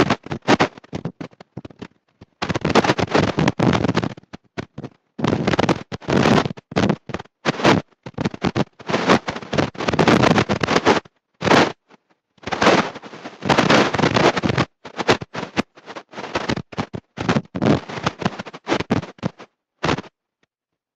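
Harsh crackling noise in irregular bursts of a fraction of a second to about two seconds, each cutting off suddenly into silence: badly distorted audio.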